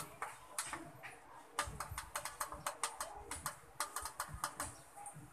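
Front-panel push buttons of an LG CRT television clicking: a few single presses, then from about one and a half seconds in a rapid run of about six or seven clicks a second as the contrast setting is stepped.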